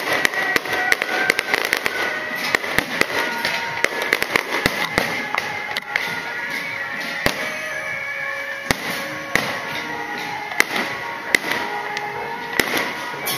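Aerial fireworks going off: a fast run of sharp bangs and crackles that thins out about halfway through to single bangs roughly a second apart, with music playing underneath.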